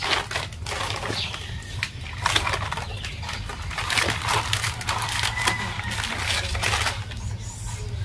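Plastic and paper packets crinkling and rustling as they are handled and torn, in a dense run of irregular crackles.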